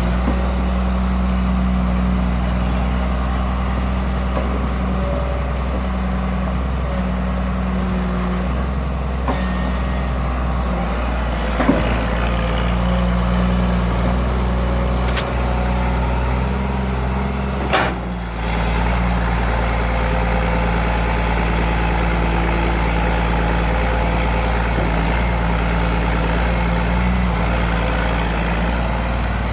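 Komatsu PC200LC-3 excavator's diesel engine running steadily at low RPM while the machine digs, its note stepping up and down as the hydraulics are worked. Two sharp knocks cut through, about 12 and 18 seconds in.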